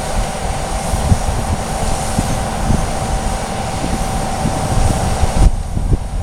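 Steady rumble of a moving vehicle, with a continuous mid-pitched hum over it that cuts off about five and a half seconds in.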